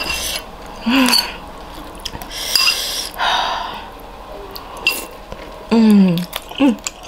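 Eating sounds: a spoon and fork clinking a few times against a bowl of meatball soup, noisy breaths at the hot food, and short hummed sounds of enjoyment. The longest hum comes near the end.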